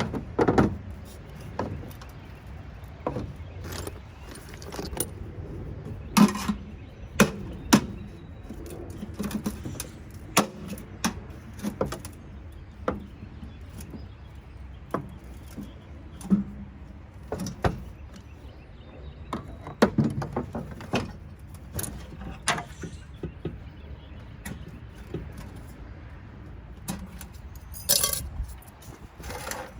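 Irregular metallic clinks, taps and knocks of hand tools and loose metal parts while a Rinnai tankless water heater is taken apart, with a brighter scrape near the end.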